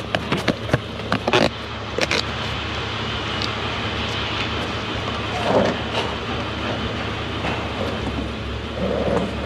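A few sharp knocks and clicks in the first two seconds, then a steady mechanical hum with a hiss over it from the workshop around the truck.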